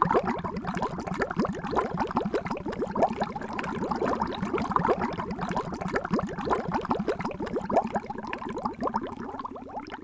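Water bubbling sound effect: a continuous stream of small bubbles with many quick rising blips, fading out near the end.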